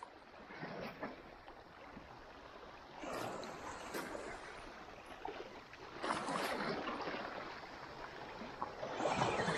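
Small sea waves washing over shoreline rocks: a soft watery wash that swells about three seconds in, again about six seconds in and near the end.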